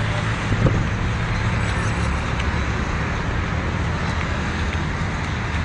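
Steady road traffic noise: cars running along a street with a continuous low rumble.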